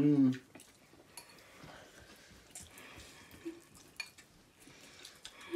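Forks clinking and scraping against bowls, with soft slurping and chewing of noodles: faint scattered clicks through an otherwise quiet stretch. A short loud vocal sound, a hummed 'mm', comes right at the start.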